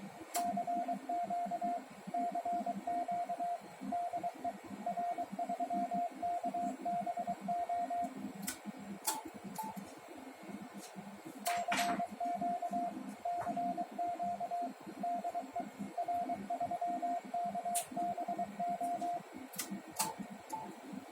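Morse code (CW) sidetone from the transceiver keying the amplifier: a single steady tone switched on and off in dots and dashes. It comes in two runs of about eight seconds each with a short break between, where a few sharp clicks are heard, all over a low steady hum.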